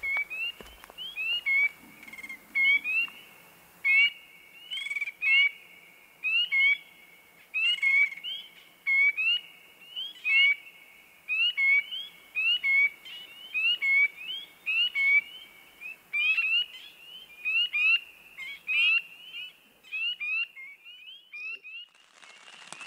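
Chorus of spring peepers calling: short, high whistled peeps that each rise in pitch, several a second from overlapping frogs.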